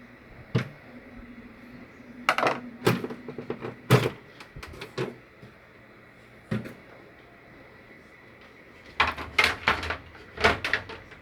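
Scattered plastic clicks and knocks as the screws and inner panel of a refrigerator are unscrewed and pulled loose during disassembly, coming in clusters, with a faint low hum behind them.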